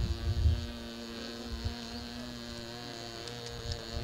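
A steady hum of several held tones, with low rumbling buffets in the first half-second.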